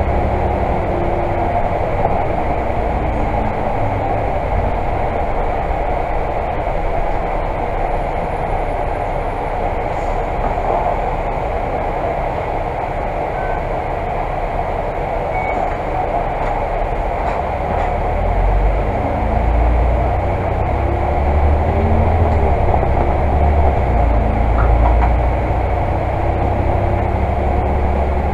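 Volvo Super Olympian double-decker bus heard from inside on the move: the diesel engine and drivetrain run under a steady road and tyre rumble. It eases off around the middle, then pulls away again with the engine revving up through its gears near the end.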